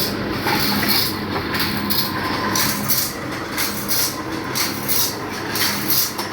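Teeth of a circular saw blade being sharpened with a hand file: quick, rhythmic rasping strokes, about two to three a second, over a steady low hum.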